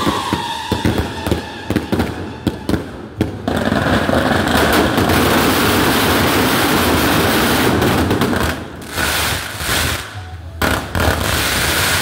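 Daytime fireworks: a quick series of sharp bangs for the first few seconds. About three and a half seconds in, a barrage of coloured smoke comets goes up with a dense, continuous crackle lasting about five seconds, and scattered bangs follow near the end.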